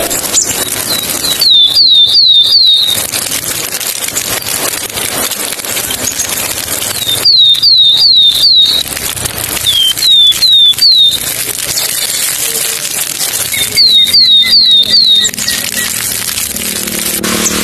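An animal calling in runs of three to six sharp, high, descending chirps, four runs a few seconds apart, over a steady outdoor hiss.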